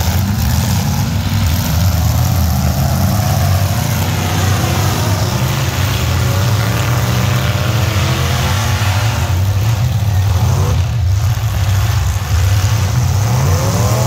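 Engines of several demolition-derby pickup trucks running loudly together, revving up and down as they drive around.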